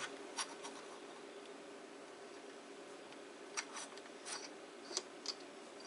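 Light metallic clicks from handling a Crosman 2240 air pistol's barrel and barrel band: a couple of faint clicks near the start, then a handful more in the second half. A faint steady hum lies under them.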